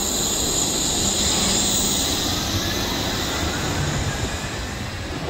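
Wuppertal Schwebebahn Generation 15 suspended monorail car pulling out of a station: steel wheels run along the overhead rail with a high whine over a rumble. The sound is loudest about a second and a half in, then fades as the car moves off.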